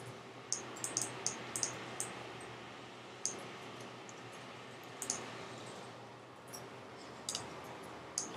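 Computer keyboard keystrokes while editing code, scattered irregular clicks: a quick run of several in the first two seconds, then single clicks a couple of seconds apart, over a faint steady hiss.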